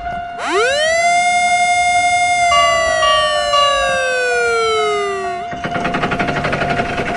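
Cartoon railway crossing bell ringing rapidly on one steady tone. About half a second in, a siren-like wail sweeps up over it, holds, then slides slowly down and cuts off about five and a half seconds in.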